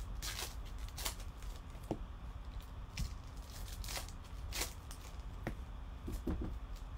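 Baseball trading cards being handled and flicked through by hand, a string of short, irregular papery swishes.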